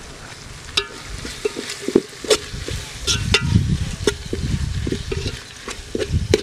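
A spoon stirring and scraping through sautéed tomato-and-onion masala in a metal pot, knocking and clinking against the pot's side again and again, with a light sizzle of the frying. It is stirring in curry leaves that have just been added.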